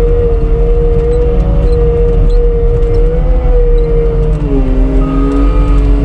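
CAT 246D skid steer's diesel engine and hydraulics running hard while the bucket pushes packed snow, a steady whine that drops to a lower pitch about four and a half seconds in.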